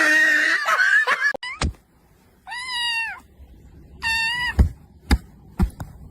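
A harsh, noisy sound in the first second or so, then a cat meowing twice, each a single arching call of about half a second, with a few short knocks in between.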